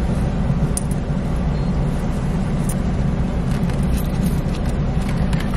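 Car engine idling, a steady low rumble heard from inside the cabin, with a few faint clicks.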